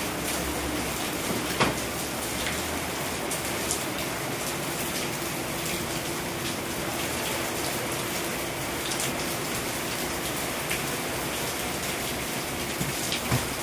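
Heavy rain falling steadily, with many individual drops ticking through it. A sharper, louder drop or knock stands out about a second and a half in and again near the end.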